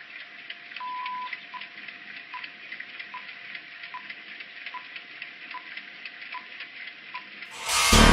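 Old-film countdown leader sound effect: a steady crackling hiss under a faint hum, with one longer beep about a second in, then a short beep about every 0.8 s. Music comes in loudly near the end.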